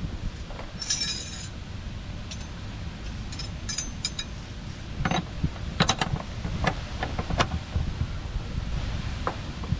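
Metal wrenches clinking and rattling against each other as they are handled, a series of sharp clinks over a steady low rumble.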